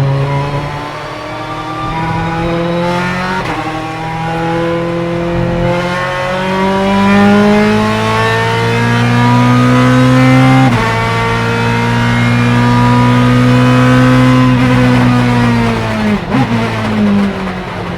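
Ferrari F430 GTC's 4.0-litre naturally aspirated 90° V8 racing engine accelerating hard, its pitch climbing steadily in each gear. The pitch drops abruptly at upshifts about 3 seconds in and again about 11 seconds in. Near the end the revs fall away as the throttle comes off, with a short sharp blip about 16 seconds in.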